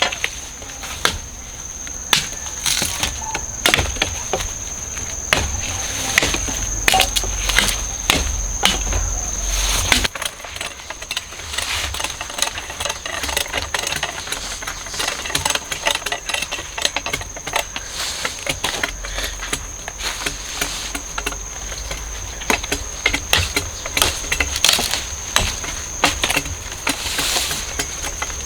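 Irregular chops and knocks, typical of sugar cane stalks being cut and trimmed with a blade. A steady high insect drone runs alongside, stopping about ten seconds in and coming back near the end.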